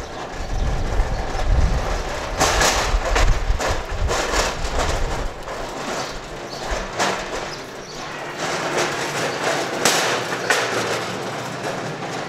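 Metal platform cart rolling on its casters over pavement, rattling continuously, with louder clattering jolts now and then. A low rumble under it fades about halfway through.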